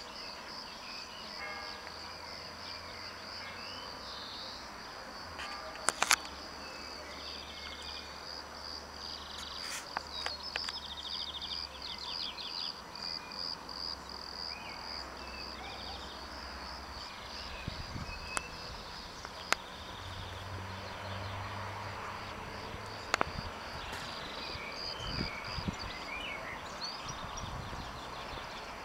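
Outdoor ambience of insects chirping steadily in a high, rapid pulse, with occasional bird chirps and a low steady hum. A few sharp clicks stand out, the loudest about six seconds in.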